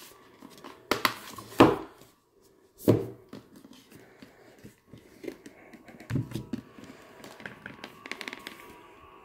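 Hands handling a cardboard oracle-card box set, with a few sharp knocks against the box in the first three seconds, then quieter rubbing and scraping of cardboard as the box is worked out of its tight outer sleeve.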